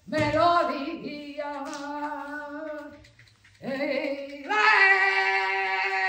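A woman's voice singing long held notes, breaking off briefly about three seconds in and then holding a higher note.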